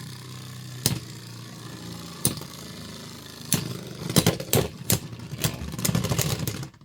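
Two Beyblade X spinning tops, Wizard Arrow and Blackshell, whirring steadily in the plastic stadium. They clack together about a second in, again near two and a quarter and three and a half seconds, then in a quick flurry from about four to five and a half seconds. The whirring stops suddenly near the end as the tops run down, a stamina finish won by Wizard Arrow.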